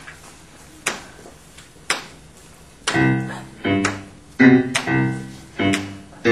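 Sharp clicks about once a second, then from about three seconds in a piano plays repeated chords in a steady rhythm.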